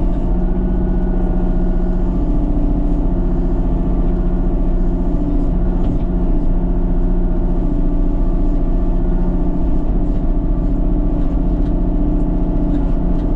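An engine running steadily at an even pitch, with no change in speed.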